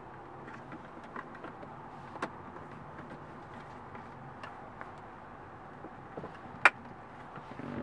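Plastic phone dock being pushed and worked into a car's centre console slot: faint scattered clicks and rubbing, with one sharp plastic click near the end.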